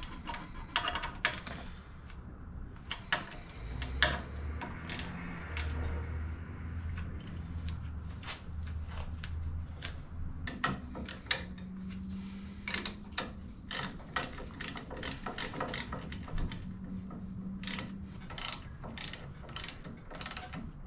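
Hand ratchet clicking in runs as the crash bar's mounting bolts are snugged up, with a few louder single knocks of metal on metal in between.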